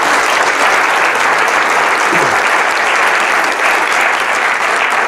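Audience applauding: many people clapping steadily, fading out near the end.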